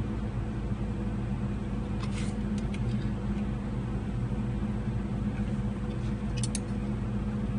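Computer mouse clicking a few times, a pair of quick clicks near the end, over a steady low hum.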